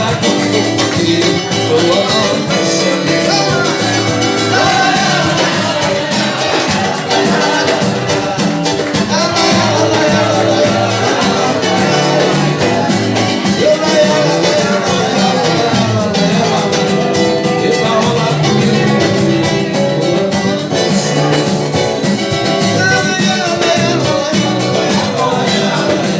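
Brazilian group playing a song, with a steady, busy percussion beat under strings and singing.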